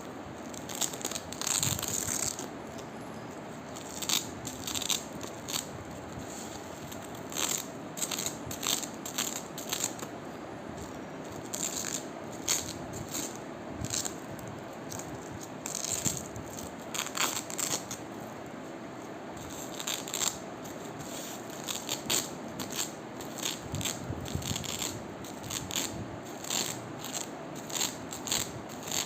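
Velcro (hook-and-loop fastener) being pulled apart in short crackly rips, repeating every second or two.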